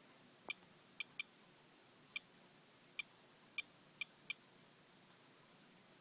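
Handheld radiation detector chirping once for each detected count, about eight short high beeps at irregular intervals. It is reading a paper towel wiped across a rain-wet car, which the owner takes for above-normal radiation.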